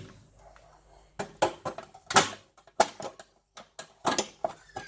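Irregular sharp clicks and knocks of metal parts being handled and set in place, about half a dozen over a few seconds with short quiet gaps between them.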